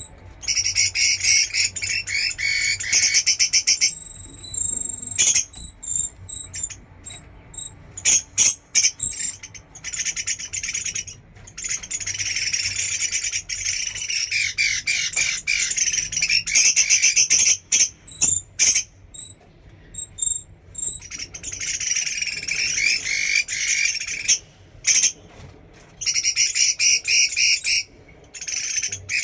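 Bạch mi songbird singing a fast, high, chattering song in long phrases broken by short pauses, with a few sharp clicks between phrases.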